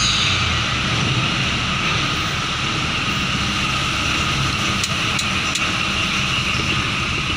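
Steady drone of a car ferry's engines, a low rumble with a hiss over it, with a few faint ticks about five seconds in.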